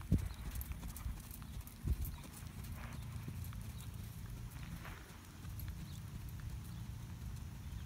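Hoofbeats of a horse trotting under a rider on sand arena footing, over a steady low rumble, with a thump about two seconds in.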